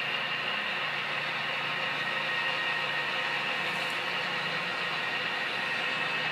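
HO-scale model Union Pacific diesel locomotives running along the layout's track, a steady, even running sound with a constant high tone and a low hum.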